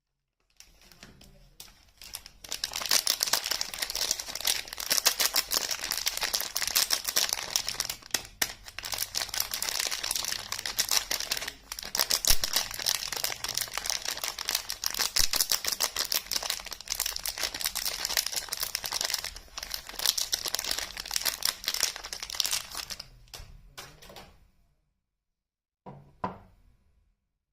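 A soap bar's wrapper crinkling and tearing as it is unwrapped: a dense, continuous crackle lasting about twenty seconds that fades out, then a short rustle near the end.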